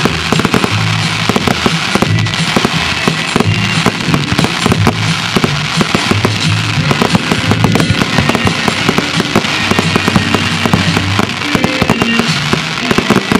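Fireworks firing continuously in a dense, irregular run of bangs and crackles, with music playing underneath.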